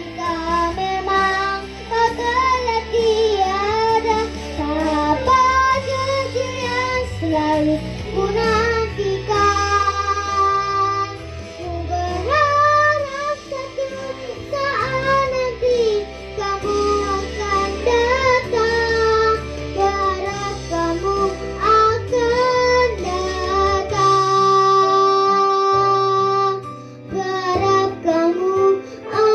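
A solo voice singing a slow pop ballad with vibrato and long held notes, over a backing track with bass and guitar.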